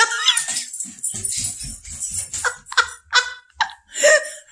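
Dog whining and yelping in a quick run of short, sharp cries, about two a second.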